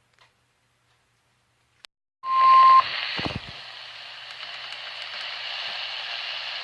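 About two seconds of silence, then a weather radio recording cuts in on the last half second of a steady single-pitched warning alarm tone. A brief low falling thud follows, and after it a steady radio hiss with a low hum.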